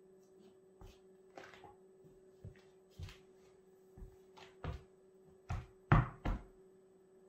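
Footsteps and foot taps of Vans Sk8-Hi MTE 2.0 DX high-top sneakers on a wooden floor: about ten soft thuds and scuffs of the rubber soles at uneven spacing, the loudest pair a little before the end.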